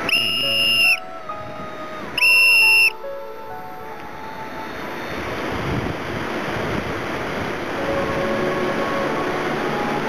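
Two loud, steady whistle blasts, the first lasting about a second and the second starting about two seconds in, over the continuous rush of whitewater rapids.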